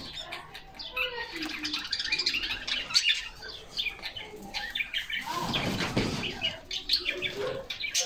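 Several canaries chirping and twittering, many short high calls overlapping. About five and a half seconds in comes a brief burst of wing-flapping.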